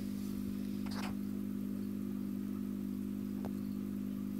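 Steady low machine hum, unchanging, with a brief faint rustle about a second in and a small click later.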